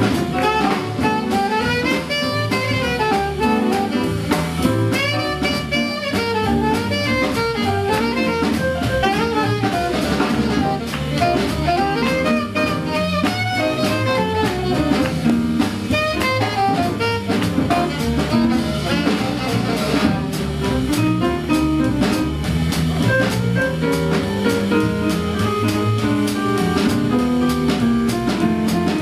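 Live swing jazz band playing, with piano, upright bass and drum kit keeping a steady beat.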